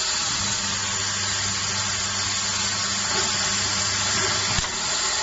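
Sewing machine running with a steady electric hum that cuts off about four and a half seconds in, over a constant hiss of blowing air that feeds the fabric through.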